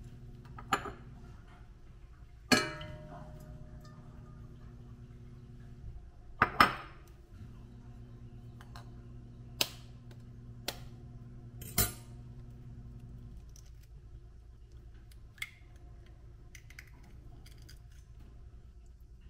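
Kitchen utensils and dishes knocking and clinking now and then, about seven separate knocks with the loudest ringing briefly. A faint low hum runs underneath.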